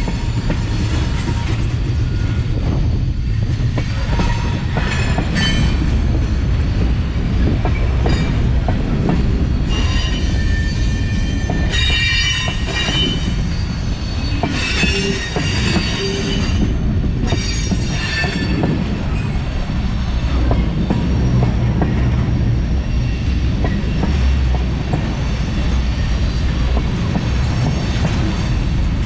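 Union Pacific freight train's tank cars rolling past close by: steel wheels rumbling on the rail with sharp clicks and clanks, and several bursts of high-pitched wheel squeal.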